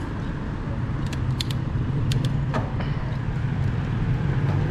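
Steady wind and road rumble from riding a Polygon Siskiu D5 mountain bike along a city street, with a few sharp clicks and rattles from the bike.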